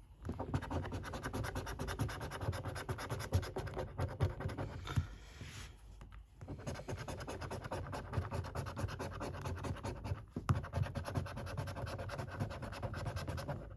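Scratchcard being scratched off in quick, continuous rapid strokes, with a pause about five seconds in and a brief stop about ten seconds in.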